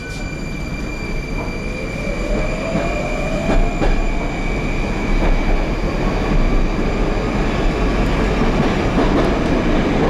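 Moscow metro train heard from inside the carriage, running with a steady rumble of wheels and car body. A motor whine rises in pitch a couple of seconds in as the train pulls away and picks up speed.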